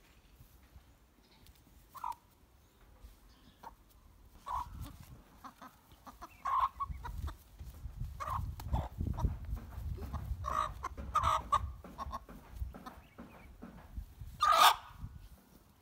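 Two black chickens tethered to a post giving scattered short squawks and clucks as they are grabbed, the loudest squawk near the end.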